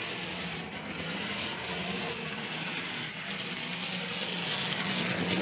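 Hornby OO-gauge Caledonian Railway 0-4-0 saddle tank model locomotive running around the track at normal controller speed: a steady electric-motor hum with wheel noise on the rails, growing a little louder near the end.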